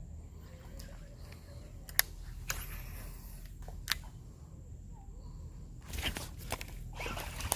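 Handling noise: a few sharp clicks about two and four seconds in, then a quick cluster of clicks and rustling near the end, over a low steady rumble.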